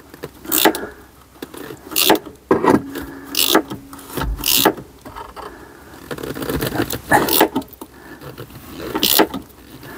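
Irregular metallic clicks, knocks and clatter of hand tools working at a stuck fastener, with a short steady hum about three seconds in.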